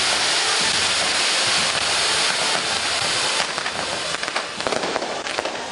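Ground fireworks spraying sparks with a steady loud hiss. About three and a half seconds in, the hiss gives way to dense crackling as the falling sparks pop.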